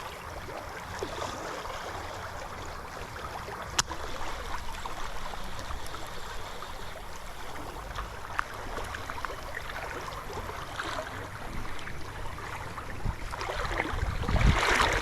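River current flowing steadily, the river running high after heavy rain, with a sharp click about four seconds in and a louder rush of water near the end.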